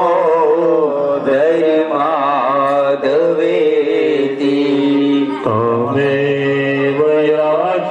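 A man singing a devotional chant, held and gliding notes, over sustained keyboard chords.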